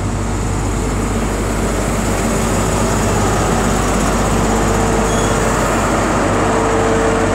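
Class 43 HST diesel power car running steadily with a deep, even hum as it moves slowly along the platform. A thin steady whine joins about four seconds in.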